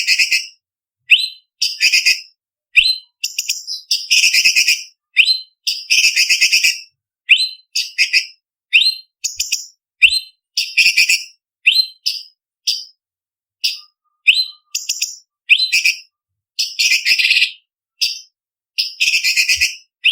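Cucak cungkok leafbird singing a fast, varied song. Short sharp whistled notes, many sweeping downward, alternate with harsh chattering bursts of a second or so: the imitations of other small birds that bird-keepers call 'tembakan'.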